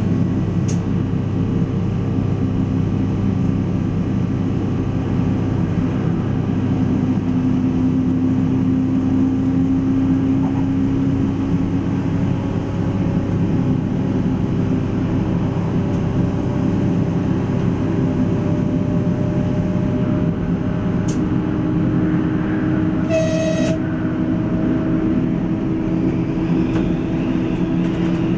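PESA ATR 220 diesel railcar running along the line, heard from the driver's cab: a steady engine drone over rail noise, its note rising a little about two-thirds of the way through. A short horn toot sounds near the end.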